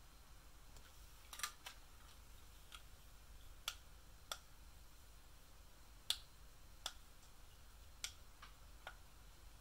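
Light plastic clicks and clacks of toy doctor-kit pieces being handled and knocking together, about ten scattered taps over a faint low hum.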